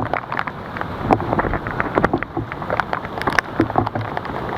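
Hurricane wind buffeting the microphone in gusts, with rain and many scattered sharp taps.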